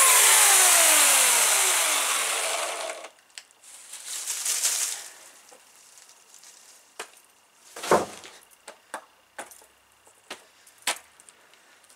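Homelite electric chainsaw's motor winding down after the trigger is released, its whine falling in pitch for about two and a half seconds before it stops. Then a brief rustle of leafy branches and a few scattered light knocks.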